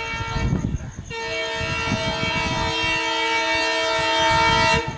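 WDM3D ALCO diesel locomotive sounding its horn: a first blast that stops just before a second in, then a long steady blast held for nearly four seconds, growing louder toward its end. Under the horn, the locomotive's engine and the train give an uneven low rumble.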